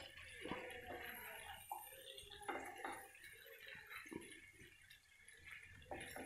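Spatula stirring capsicum and paneer in a kadhai: faint scrapes and knocks against the pan, scattered through the stirring.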